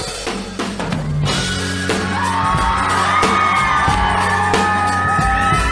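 Live rock band playing, drums and guitar, with a singer sliding up into a long, high held note about two seconds in.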